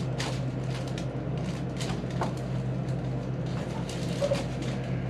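Steady low room hum with faint scattered rustles and light clicks.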